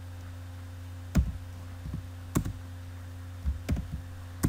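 About six scattered computer keyboard keystrokes at an irregular typing pace, the first one loudest, over a steady low hum.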